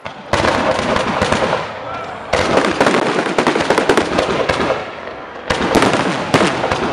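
Fireworks display: three volleys of aerial shells bursting a couple of seconds apart, each a dense crackle of many sharp reports that thins out before the next.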